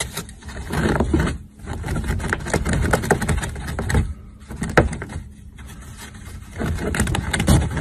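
A rabbit scratching and scraping with its claws at a wooden floor, in quick irregular bursts with short pauses between them.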